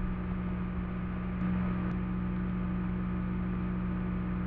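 Steady low electrical hum with several overtones, even in level throughout.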